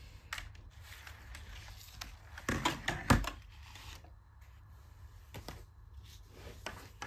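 Handling noise as things are moved about on a table: a quick cluster of knocks and clicks about two and a half to three seconds in, with a few lighter clicks and faint rustling either side.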